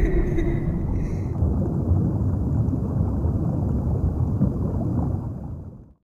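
Steady low rumbling noise under the end title. A fainter higher tone dies away about a second and a half in, and the rumble fades out about five to six seconds in.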